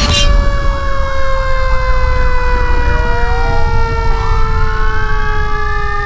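Intro sound effects: a sudden swoosh, then sustained electronic tones that slowly sink in pitch, with a siren-like wavering warble and, from about halfway, a rising wail.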